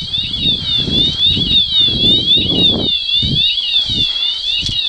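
Electronic alarm of an airsoft bomb prop sounding: a siren-like tone warbling down and up about twice a second over a steady high whine. Irregular low rustling and bumps run underneath.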